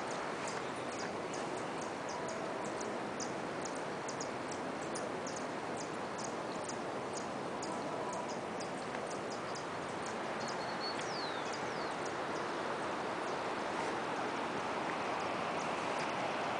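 Savegre River rushing as a steady wash of water noise. Over it, a bird gives a fast series of short high chips, about two or three a second, which thin out about two-thirds of the way through, with two quick falling whistles near the end of the series.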